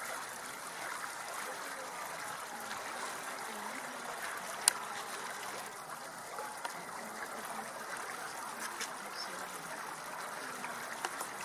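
Outdoor ambience: a steady, soft rushing noise with faint distant voices in it, and one sharp click about five seconds in.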